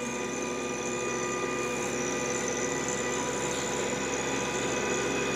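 TYM T264 compact tractor's diesel engine running steadily under heavy load, driving a five-foot PTO rotary tiller buried deep in the soil.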